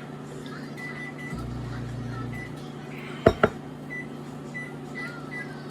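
Steady low hum, thickening for about a second near the start, with two sharp clicks in quick succession a little past halfway.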